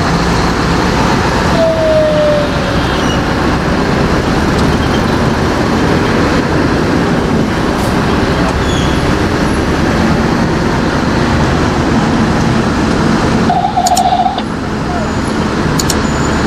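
Steady road-traffic noise heard from the cab of a Scania R580 truck with its V8 diesel running while it crawls through dense street traffic. A short falling whistle comes about two seconds in, and a brief beep about thirteen and a half seconds in.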